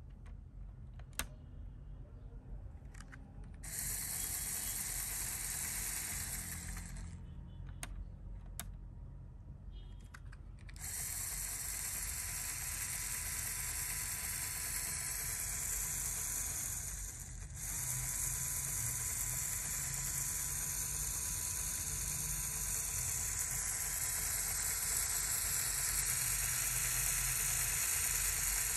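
LEGO Technic electric motor driving the model's plastic gear train and gearbox, a steady mechanical whir with gear clatter. It runs briefly about four seconds in, stops, then runs continuously from about eleven seconds on. Before and between the runs come a few sharp plastic clicks as the gear shifter is handled.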